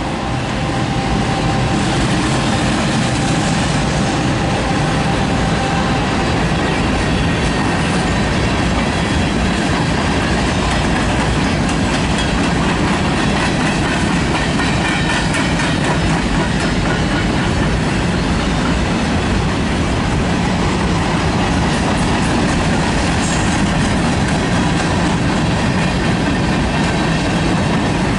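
Freight cars of a Canadian National mixed freight train (boxcars and centerbeam flatcars) rolling past: a steady, loud rumble and clatter of steel wheels on the rails that builds in the first second and then holds.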